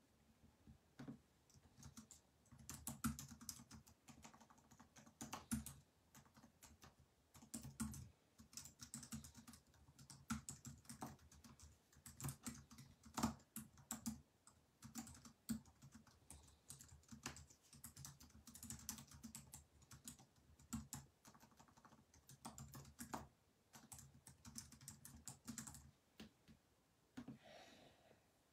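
Faint typing on a computer keyboard: irregular runs of quick key clicks with short pauses between them.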